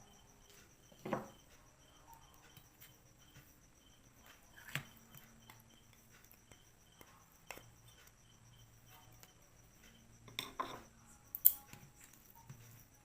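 Eating sounds: a handful of sharp crunches and clicks spaced a few seconds apart, the loudest two near the end, over faint steady chirping of crickets.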